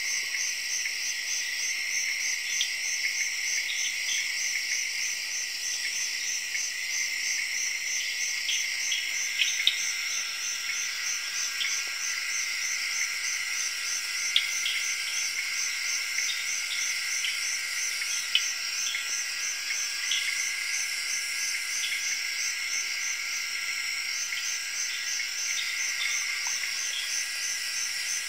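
Night-time forest insect chorus: crickets and other insects trill steadily and shrilly, one of them in an even, fast pulse. Short chirps are scattered over it throughout.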